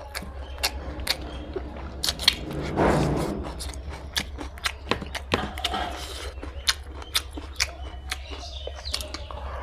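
Close-up mouth sounds of eating fried pork and rice: wet smacks and many sharp clicks of chewing, with a louder rushing swell about three seconds in. A steady low hum lies under it.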